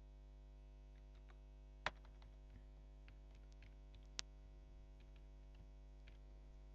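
Faint computer-keyboard typing clicks over a steady low electrical hum, with two sharper key clicks about two and four seconds in.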